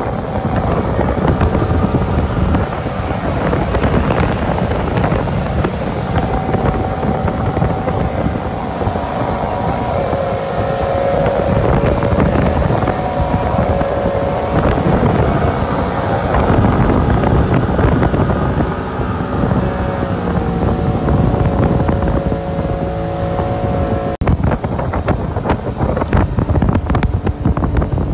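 Motorboat running at speed while towing a tube: a steady engine drone with a few held tones, over the rush of the churning wake and wind buffeting the microphone. About 24 seconds in, the engine tones drop away, leaving gusty wind thumps on the microphone.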